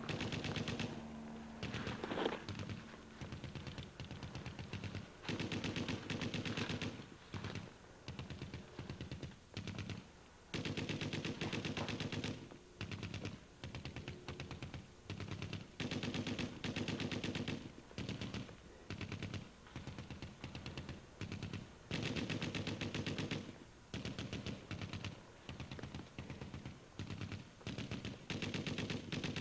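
Paintball markers firing in rapid volleys: quick strings of sharp pops, one burst after another with short pauses between them.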